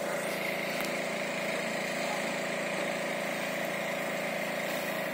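Small truck's engine idling steadily, with an even, unchanging hum.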